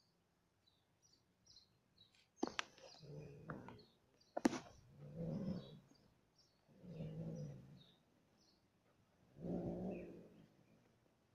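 Cat giving low, drawn-out yowls while mating: four calls about two seconds apart, each lasting around a second. Two sharp clicks come shortly before the louder calls.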